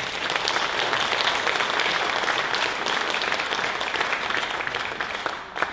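Audience applauding, a dense, steady clatter of many hands clapping that eases slightly near the end.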